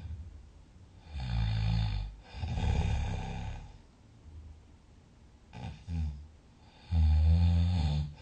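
A sleeping person snoring loudly. There is a deep snore about a second in, followed straight away by a long noisy breath, then a short breath near six seconds, and another loud snore near the end.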